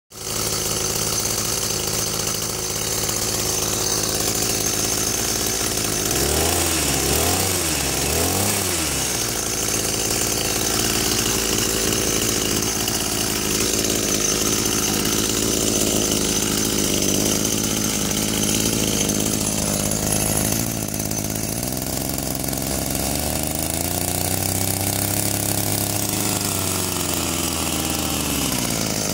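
Petrol engine of a Hauchek diamond core drill rig running steadily. It is revved up and down three times about six seconds in, then makes a slower rise and fall in speed near the end.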